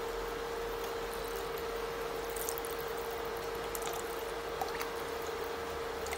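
Water pouring from a jug into a pot of curry-like soup on an induction cooker, with a steady single-tone hum underneath and a few faint ticks.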